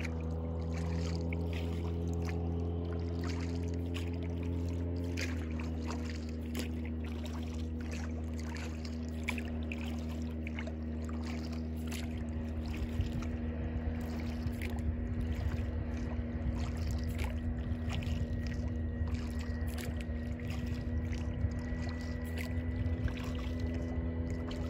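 Small boat's outboard motor running steadily as the boat moves along, its pitch stepping down slightly about five seconds in.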